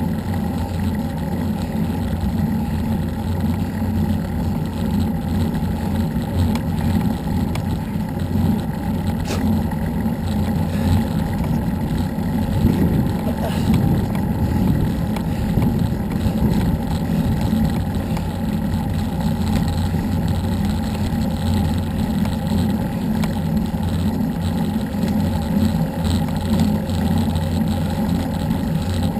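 Steady low rumble of wind buffeting the microphone, mixed with road noise, while moving along a road at speed.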